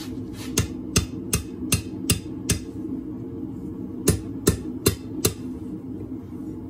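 Hand hammer striking a red-hot scroll of half-inch round steel bar on an anvil: six blows at about two or three a second, a short pause, then four more, over a steady low hum.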